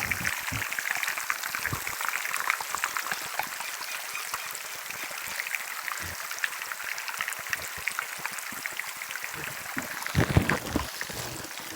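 Heavy rain falling: a steady dense hiss of drops with many small pattering ticks. About ten seconds in there are a few louder low thumps.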